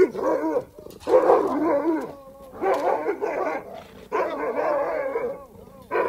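Alaskan malamutes giving territorial guard barking at a stranger at the gate: drawn-out barks in about five bouts of roughly a second each, the pitch wavering within each bout.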